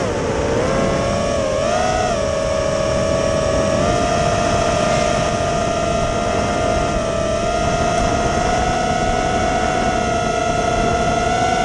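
Motors of a 5-inch FPV racing quadcopter (T-Motor F60 III 2750kv with tri-blade 5-inch props) whining steadily in fast, low cruise, over rushing air noise. The pitch dips and wobbles briefly in the first two seconds with throttle changes, then holds and creeps slightly higher in the second half.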